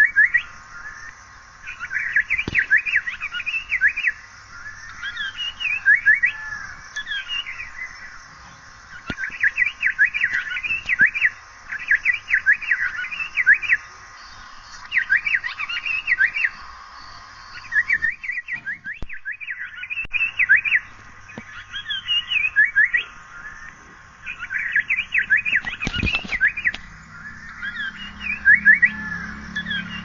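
Asian paradise flycatcher calling in repeated bursts of rapid, high chattering notes, each burst lasting one to two seconds with short pauses between.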